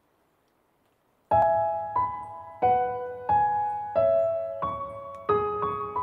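Slow, gentle background piano music. It begins about a second in, after near silence, with a new note or chord about every two-thirds of a second.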